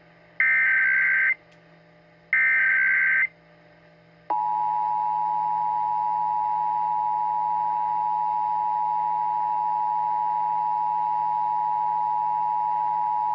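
Emergency Alert System tones: the last two of the three SAME header data bursts, each a harsh digital warble just under a second long, a second apart. About four seconds in, the steady two-tone EAS attention signal starts and holds.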